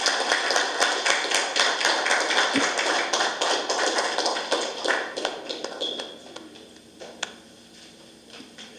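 Audience applause. It is steady at first and fades away after about five or six seconds.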